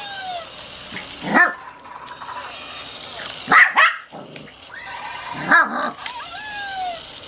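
Shih Tzu barking three times, about two seconds apart, at a moving toy she is wary of.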